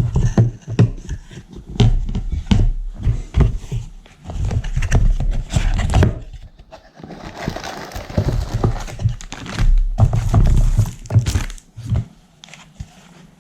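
Box contents and small plastic parts being handled and set down: a run of knocks and taps, with a stretch of rustling around the middle.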